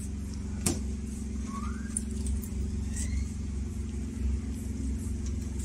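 Steady low mechanical hum, with one sharp click under a second in and a few faint short rising chirps.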